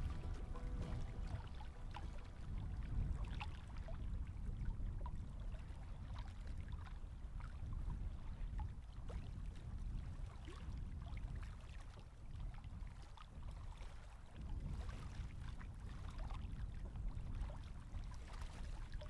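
Small waves lapping and splashing against a lakeshore rock, with a steady low rumble of wind on the microphone.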